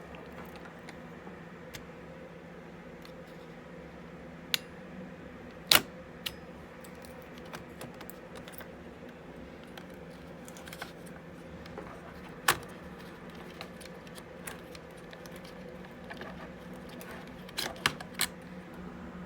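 Laptop parts being handled during a hard drive swap: scattered sharp clicks and taps of small hard parts, the loudest about six and twelve seconds in and a quick cluster near the end, over a steady low hum.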